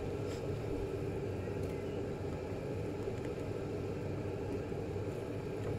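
Steady low mechanical hum with a couple of faint taps.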